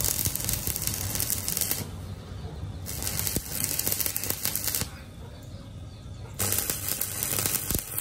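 Stick welding arc crackling on steel in three runs: it breaks off about two seconds in, strikes again about a second later, breaks off again about five seconds in, and restarts a second and a half later.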